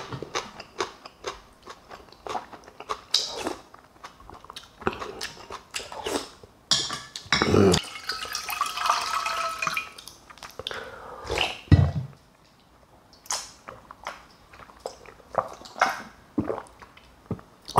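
A person eating: chewing and biting with wet, crackling mouth sounds and many short clicks, and a longer wet, slurping stretch about halfway through.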